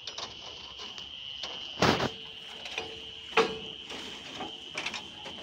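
Crickets chirring steadily at night, with two loud sharp knocks about two and three and a half seconds in and lighter clicks in between.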